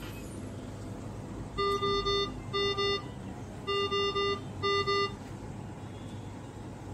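GE CARESCAPE R860 ventilator's alarm sounding the high-priority pattern: three beeps, then two, then three and two again, as ventilation is paused and the machine drops into standby. The alarm flags 'Patient detected' because the test lung is still connected.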